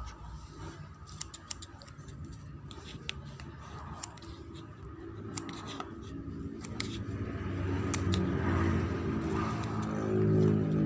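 Slime being handled: a scattered run of sharp clicks and small snaps for the first several seconds, then a low rumble that grows louder toward the end.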